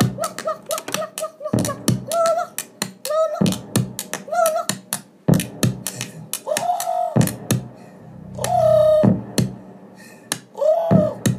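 Electronic dance music played from a vinyl record on a turntable: a run of sharp percussion hits, with short pitched notes that bend downward every second or two.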